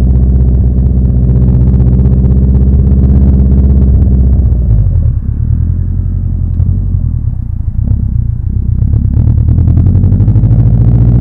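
Subaru Impreza GB270's flat-four engine running through a custom 3-inch exhaust, a loud, deep, steady drone. It eases off and goes rougher about five seconds in, then picks back up to the same steady note around nine seconds.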